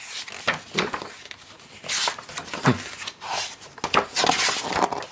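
Pages of a large hardcover art book being turned by hand: several paper swishes and flaps, with hands sliding over the glossy pages and small taps as the pages settle.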